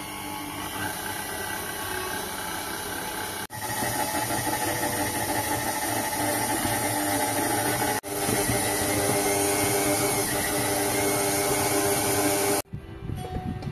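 KitchenAid Artisan stand mixer running, its flat beater turning flour and eggs into pasta dough: a steady motor whine with hiss. It breaks off abruptly twice and runs louder after each break, then stops sharply near the end.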